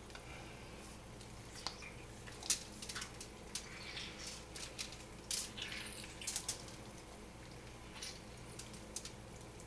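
Lemon half squeezed by hand over a fish on aluminium foil: faint squelches of the fruit and juice dripping in scattered light ticks, busiest between about two and seven seconds in.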